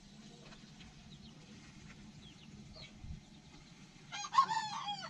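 A farm animal gives one loud, wavering call about four seconds in, lasting just under a second. Faint bird chirps come before it.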